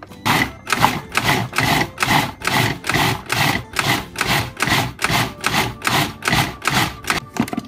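Cuisinart food processor pulsed in short bursts about twice a second, its blade chopping fresh cranberries, unpeeled orange quarters and sugar into a chunky relish.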